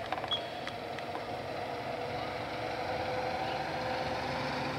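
A motor vehicle's engine running with a steady hum, slowly getting a little louder.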